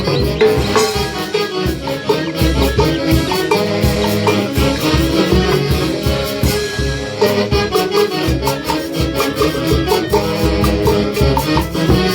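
Huayno music played by a band, with a steady, driving beat.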